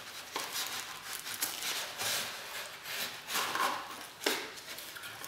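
Cardboard and paper packaging handled and pulled apart by hand: irregular rubbing, scraping rustles with a few sharp ticks.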